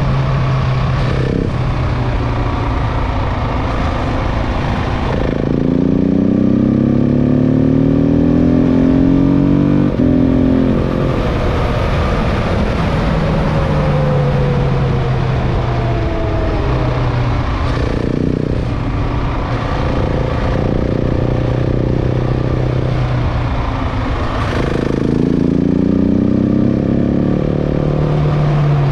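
KTM 690 Enduro's single-cylinder engine pulling under acceleration while riding, its pitch climbing repeatedly and dropping back at each gear change or throttle lift, over wind and tyre noise.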